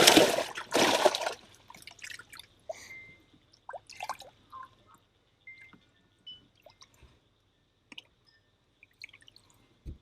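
Water splashing in the first second or so, then scattered drips and small splashes as bass are handled wet out of the water.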